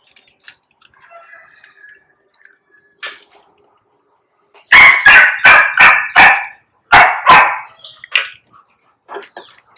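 A dog barking: a quick run of about seven loud barks, roughly three a second, then one more bark a second later.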